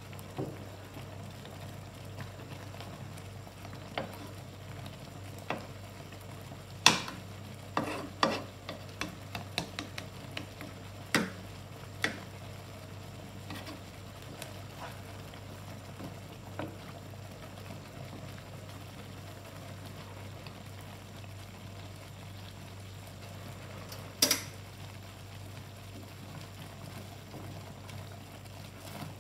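Wooden spatula stirring a thick cheese sauce with sausage and ham in a nonstick pan, with a gentle simmer underneath. Sharp knocks and scrapes of the spatula against the pan come in a cluster about a quarter of the way in and once more late on, over a steady low hum.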